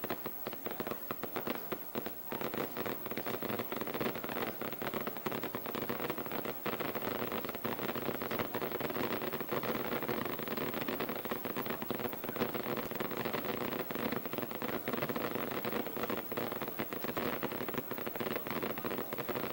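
Firecrackers going off from the fireworks rig hung beneath a large paper hot-air balloon: a dense, continuous crackle of many rapid pops running together, growing denser about four seconds in.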